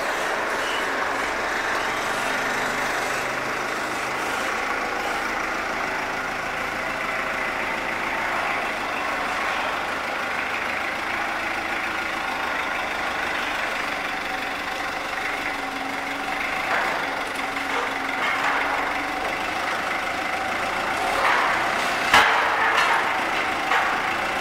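Forklift engine running steadily as it carries and lowers a load, with a few sharp metal clanks near the end as the load comes down onto the truck bed.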